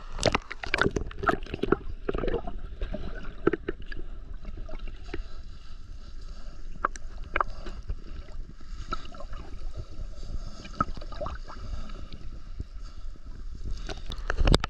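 Sea water sloshing and splashing against a camera held at the surface, then the muffled low rumble and occasional clicks of water with the camera submerged, and a loud splash about a second before the end as it breaks back through the surface.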